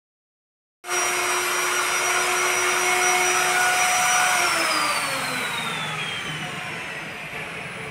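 A motor-driven machine running with a loud, steady whine over a rushing noise. About four and a half seconds in, its pitch glides downward and the sound slowly fades as it winds down.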